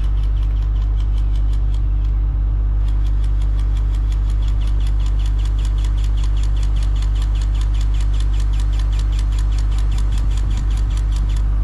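Kobelco SK250 LC excavator's diesel engine running steadily, with a rapid, even clicking over it, about five clicks a second. The clicking pauses briefly about two seconds in and stops shortly before the end.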